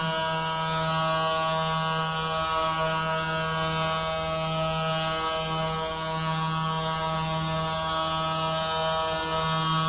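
Stouffville Spirit hockey goal horn blowing one long, unbroken blast: a low horn note with many overtones, held steady.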